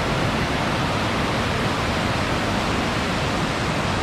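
River water rushing steadily: an even, unbroken hiss of flowing water.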